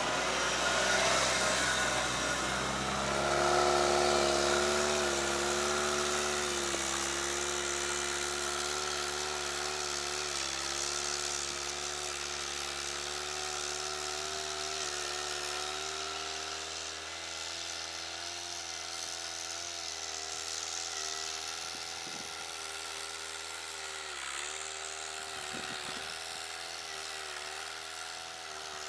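Engine of an articulated all-terrain vehicle working under load while climbing a steep hill in deep snow: a steady droning note that wavers in pitch and slowly grows fainter.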